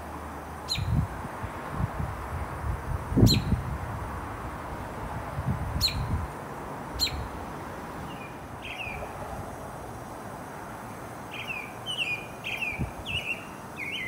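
Female northern cardinal giving about four sharp, quick chip notes, then a run of repeated falling whistled notes in the last few seconds. Wind gusts buffet the microphone in the first half and once near the end.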